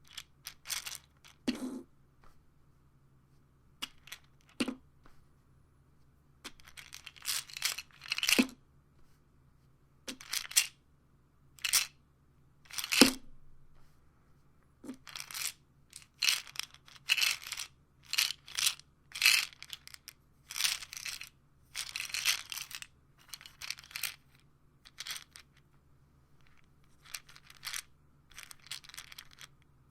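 Pills rattling inside a pill bottle, shaken in a long series of short, irregular bursts with brief pauses between, a few of them with a light knock of the bottle.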